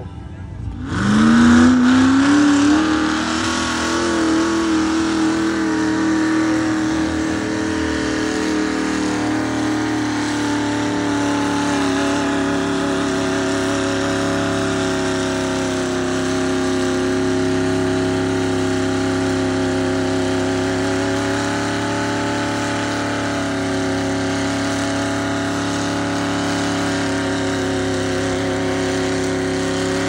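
Mud-bog pickup truck's engine revving up about a second in, then held at high revs with a slight waver as the truck churns through deep mud.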